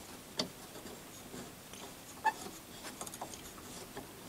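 A few light metallic clicks and taps as a carbide tool in its holder is handled and set on a steel lapping table, the sharpest click about two seconds in.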